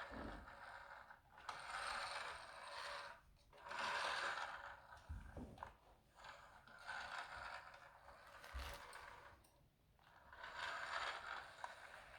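A small toy car's wheels and gears whirring and scraping in about four bursts of a second or two each, as a parrot rolls it around.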